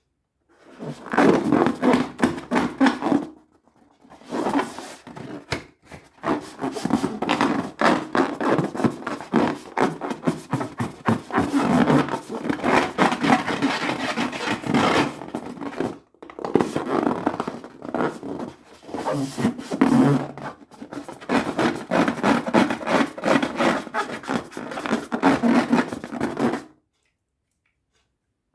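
Rubber balloons making a long run of dense, rapid crackling, rubbery noise, broken by three short pauses.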